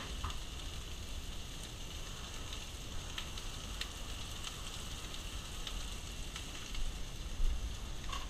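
Food sizzling in a hot pan, a steady hiss with scattered sharp crackles, over a low steady rumble.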